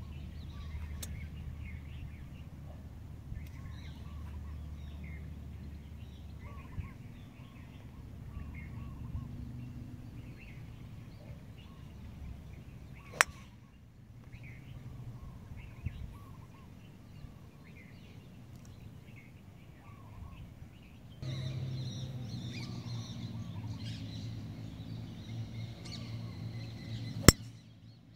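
Two crisp strikes of a golf club on the ball in full fairway swings, one about halfway through and a louder one near the end. Birds chirp throughout.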